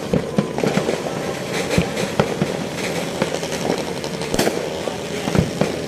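Fireworks display going off: a run of irregular bangs and crackling pops over steady background noise.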